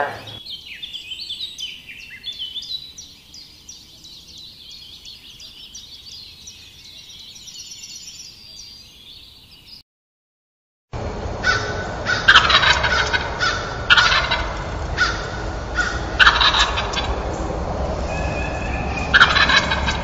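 Small songbirds chirping and singing softly in quick, high notes. After a brief gap, turkeys gobble loudly several times.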